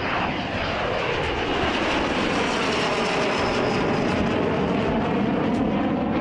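Bayraktar Kızılelma unmanned fighter jet's turbofan engine, loud and steady as the jet flies past, its pitch sliding down throughout the pass.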